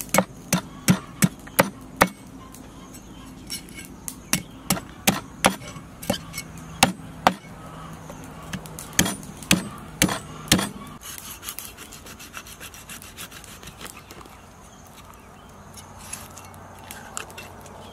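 A knife scraping scales off a large fish on a wooden chopping block. Sharp knocks come roughly twice a second until about two-thirds of the way through, then give way to softer, steady scraping.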